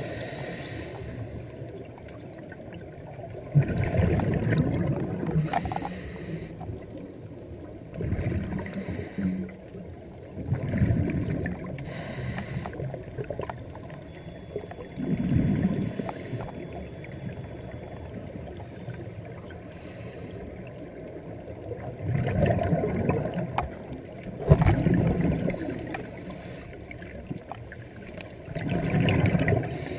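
Scuba diver's exhaled bubbles from a regulator underwater, a bubbling rush every few seconds over a steady underwater hiss.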